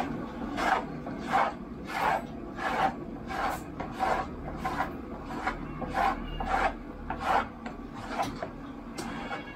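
Dry cat kibble being scooped through a tray of pellets: a rattling scrape repeated about three times every two seconds.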